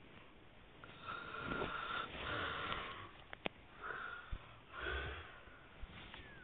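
Steam hissing in uneven puffs from a pot of boiling beans, one puff carrying a thin whistle, with a few sharp clicks in between.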